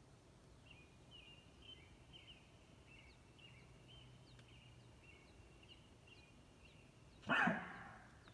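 Elk call: a short, loud mew that falls in pitch, about seven seconds in. Before it, a run of faint, high chirps repeats a couple of times a second.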